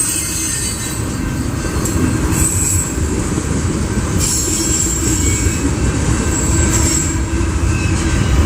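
BNSF freight train cars rolling past: a steady heavy rumble of wheels on rail, with high wheel squeal that comes and goes every second or two.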